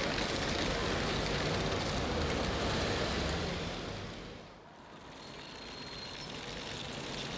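Steady street noise of road traffic, with a low rumble. It fades down briefly about two-thirds of the way through, then builds back up.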